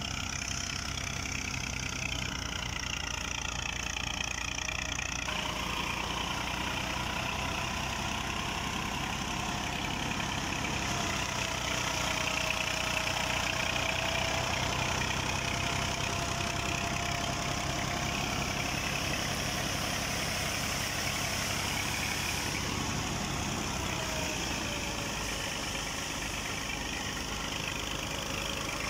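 Massey Ferguson 240 tractor's three-cylinder diesel engine running steadily while driving a wheat thresher, with a faint whine that drifts slowly up and down in pitch.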